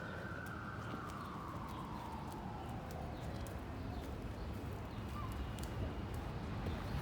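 Emergency vehicle siren about a block away, its wail falling steadily in pitch over the first three or four seconds and fading out, over a low street rumble with scattered faint clicks.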